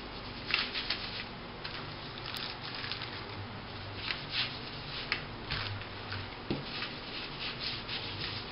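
A hand rubbing fat over a metal baking tray to grease it, in a series of short, irregular rubbing strokes.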